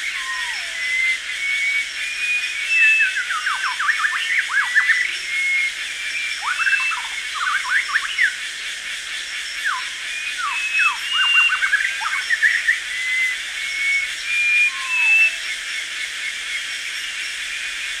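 Tropical rainforest ambience: a steady high insect drone with several birds calling over it. There are short whistled notes throughout, three bursts of rapid downward-sweeping notes, and a single lower falling whistle near the start and again about 15 seconds in.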